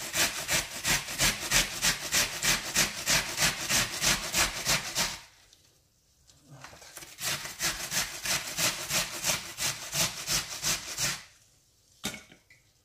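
An onion being grated finely on a stainless steel box grater: rhythmic rasping strokes, about three to four a second, with a short pause a little after five seconds, stopping about eleven seconds in. A single knock follows near the end.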